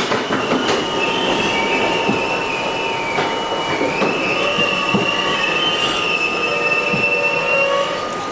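Interior of a Budd-built R32 subway car running at speed: a steady rumble of wheels on track, with a high squeal that wavers in pitch through most of the stretch, and a few light clacks from the rails.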